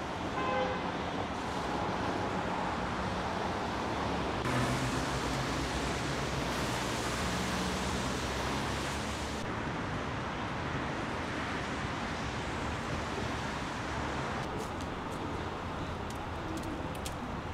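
City street ambience: a steady hiss of road traffic, shifting in character a few times.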